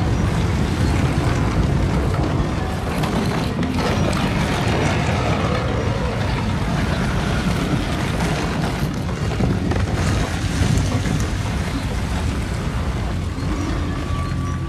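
A loud, steady deep rumble with a rushing noise over it and faint music beneath. Held music tones come in near the end.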